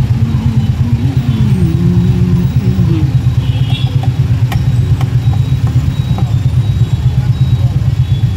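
Stopped city traffic with a nearby motorbike engine idling, a fast, even throb. A wavering tone rises and falls over the first three seconds.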